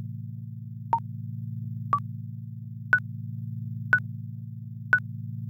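Countdown timer beeps: six short electronic blips, one a second, the last three higher in pitch than the first three, over a steady low electronic hum.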